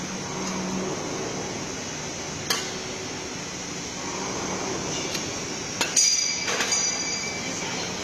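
Sharp metallic clanks over the steady hum and noise of factory machinery: a single clank about two and a half seconds in, then a cluster of clanks around six seconds in that ring on briefly.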